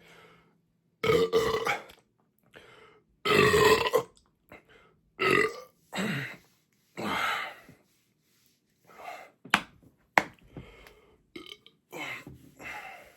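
A man belching over and over, a string of loud belches with the biggest two between about one and four seconds in. The belches come from soda gulped down fast on a stomach stuffed with pizza, letting out the built-up gas. Two sharp clicks come after the middle, then a few smaller belches near the end.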